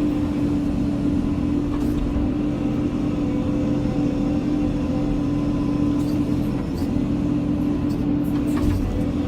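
Cat 320 excavator's diesel engine and hydraulics running steadily, a constant low rumble with a steady hum, and a few faint clicks.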